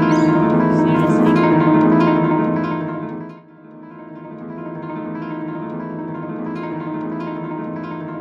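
Background music of a plucked acoustic guitar. It dips sharply about three and a half seconds in, then carries on a little quieter.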